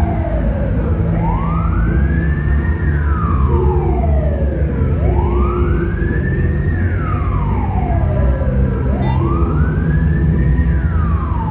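GAZelle Next resuscitation ambulance's wail siren, its pitch rising and then falling slowly, about one cycle every four seconds, with a low engine and road rumble underneath.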